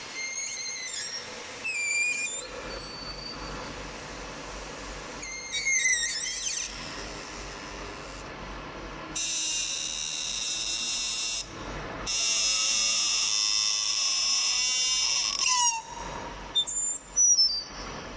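Servo motors of a CNC aluminium-profile bending machine whining as its axes move: several short whines that glide up and down, then a long steady whine through the middle that ends in a falling glide, over a steady low hum.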